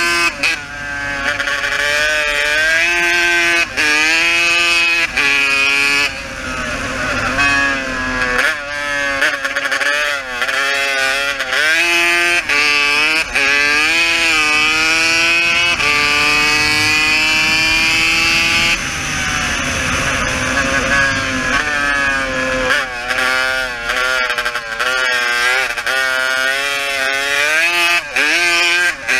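Race quad's engine heard onboard, revving hard and falling away over and over as the throttle is opened and shut, with one longer steady climb in pitch around two thirds through.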